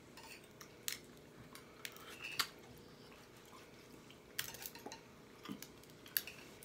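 Eating sounds at a meal: a handful of short, sharp clicks and smacks, spaced apart with quiet between them.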